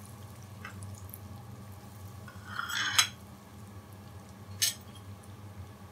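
Breaded chicken pieces deep-frying in a pan of hot oil, a quiet steady sizzle. About two and a half seconds in comes a short louder spell of noise ending in a sharp clink, and another sharp clink follows about four and a half seconds in.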